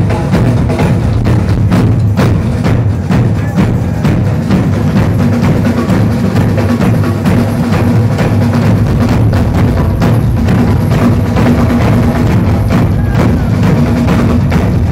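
Loud live drum ensemble: many drummers pounding a drum kit, toms and large drums together in a dense, continuous beat over a steady low drone.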